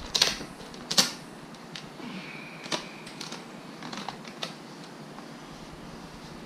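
Irregular sharp clicks and taps from handling vinyl wrap on a mini-fridge's plastic door parts, the loudest about a second in, with a brief high squeak a little after two seconds.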